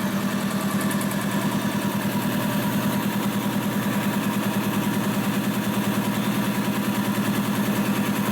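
Freshly rebuilt DeVilbiss DevAir 445 two-stage industrial air compressor running steadily under load, pumping up its tank toward cut-off at about 90 psi. A strong hum with a rapid, even pulse from the pump strokes.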